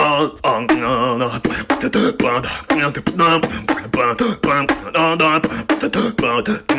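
A voice beatboxing: quick vocal percussion hits mixed with sung, wavering tones.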